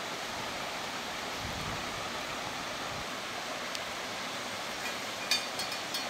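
Steady rushing of a waterfall, an even roar that holds without change.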